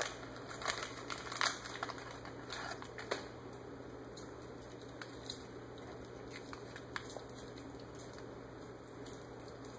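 Soft scattered clicks and rustles of snack packaging being handled, mostly in the first three seconds, over a steady low hum in a quiet room.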